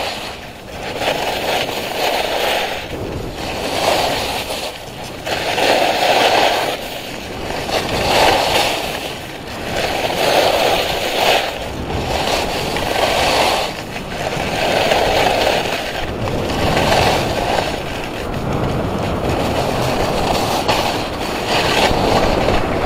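Skis carving turns down groomed snow: a hissing scrape of the edges that swells and fades about every one and a half to two seconds, one swell per turn.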